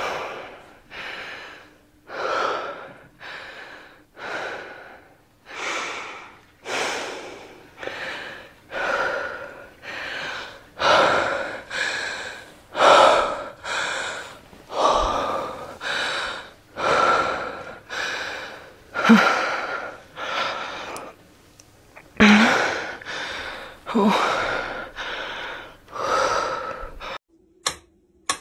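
A person's heavy, gasping breaths, about one a second, each swelling and fading. Near the end a wind-up metronome starts ticking.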